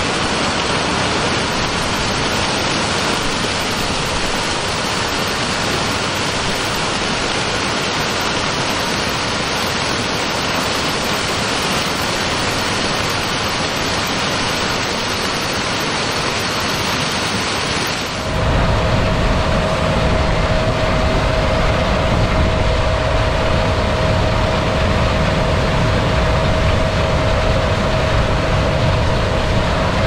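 John Deere X9 1100 combine harvester working in corn: an even rushing machine noise, then, about eighteen seconds in, a sudden change to a closer, deeper rumble with a steady whine over it.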